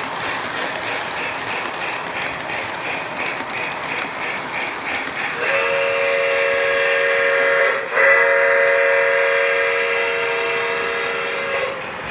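Model trains running on the layout with a steady beat of about four a second, then a model steam locomotive's whistle blowing two long blasts, starting about five seconds in, the second longer than the first.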